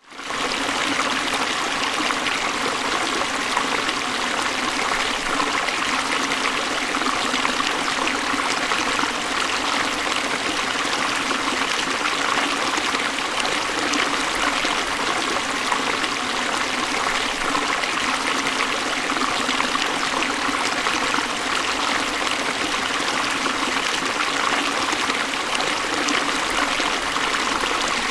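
Water of a creek running and splashing, a steady rushing sound that fades in over the first half second.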